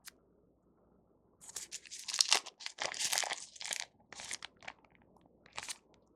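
Plastic food packaging crinkling and tearing as it is handled and opened, in a run of rustles for a couple of seconds, then a few short crinkles.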